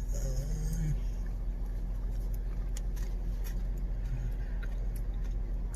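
Steady low rumble of an idling car engine, with a few light clicks.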